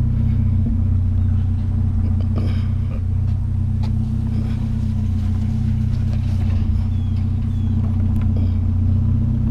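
Truck engine idling steadily, with a few light knocks of metal being handled.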